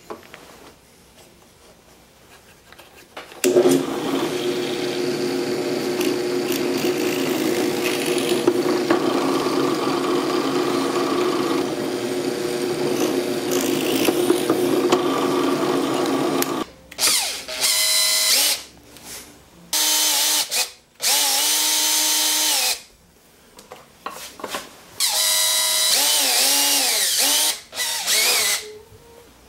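Benchtop drill press starting about three seconds in and running steadily for some 13 seconds while boring pivot holes in wooden bars. It is followed by a cordless drill in several short whirring bursts, its pitch rising and falling as it drives screws into a wooden frame.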